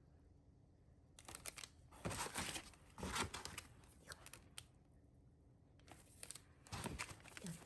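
Packaging rustling and crinkling as it is handled, in two spells of bursts about a second in and again near the end.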